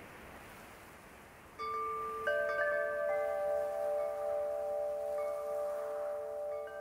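Wind chimes ringing: a first note about a second and a half in, then several more a moment later, the notes overlapping and ringing on. Before the chimes there is only a faint steady hiss.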